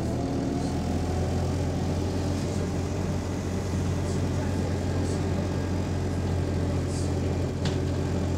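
Alexander Dennis single-decker bus converted to XFE with a hydraulic cooling fan, heard from inside the saloon: its diesel engine runs with a steady low drone while the bus pulls along slowly. Near the end there are a couple of light clicks.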